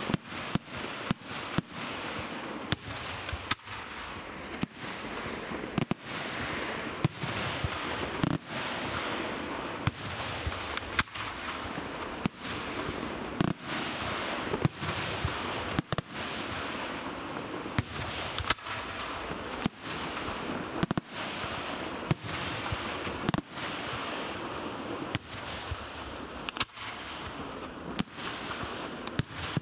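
Aerial firework shells bursting in rapid succession, about one to two sharp bangs a second, with a dense crackle and hiss from the burning stars filling the gaps between bangs.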